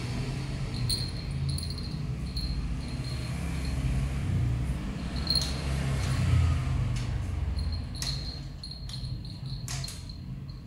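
Small bell on a cat's collar tinkling now and then as the cat rolls and kicks on a tile floor, with a few light knocks, over a low rumble that fades about eight seconds in.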